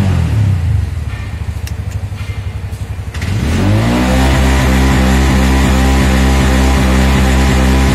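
A Bajaj auto rickshaw's single-cylinder 236 cc engine falls away from a rev and runs down unevenly. About three seconds in, a steady mechanical drone spins up and holds with regular low pulses, typical of the starter motor cranking the engine. The battery voltage sags to about 9.5 V under the load.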